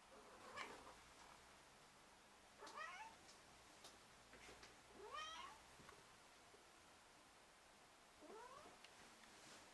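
Silver Bengal cat meowing four times, a few seconds apart; each call is short, and the last three rise in pitch.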